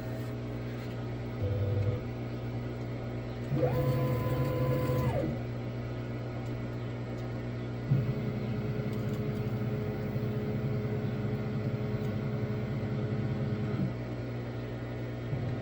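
Stepper motors of a Cue Demon CNC jogging its axes in separate moves: a brief move about a second and a half in, a whine that rises in pitch, holds and falls back around the fourth to fifth second, and a longer, lower steady move from about eight to fourteen seconds. The machine is being positioned over a marked centre point to zero X and Y, over a steady low hum.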